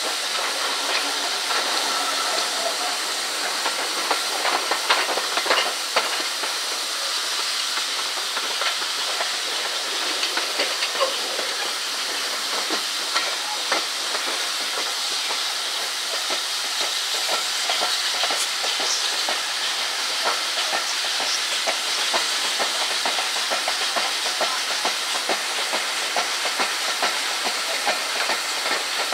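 Steam-hauled train in motion heard from an open carriage window: a steady rushing hiss of running noise and steam, with many small clicks and knocks from the wheels and carriages.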